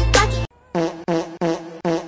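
Music: a loud passage with heavy bass stops abruptly about half a second in, followed by one short pitched note with a sharp attack, repeated four times at an even pace.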